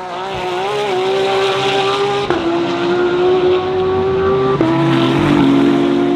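A DTM GT3 race car engine accelerating hard. Its pitch climbs steadily, then falls sharply at two quick upshifts, about two and a half and four and a half seconds in.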